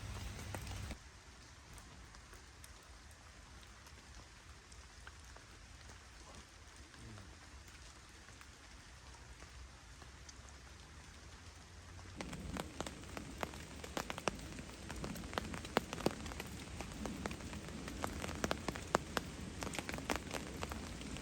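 Steady rain falling on a tarp strung over a hammock, an even hiss. It changes abruptly about a second in and again just past halfway, the later part louder with many distinct drops pattering on the tarp.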